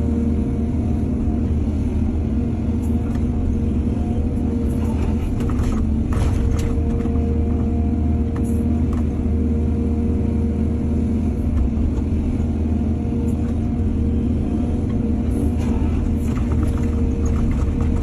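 Heavy diesel engine running steadily, as of an excavator loading soil, with bursts of rattling and clanking about five to seven seconds in and again near the end.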